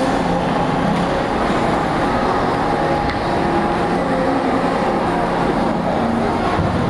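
Steady, loud din of a busy indoor ice rink: many skaters' voices blending and echoing over a continuous background rumble.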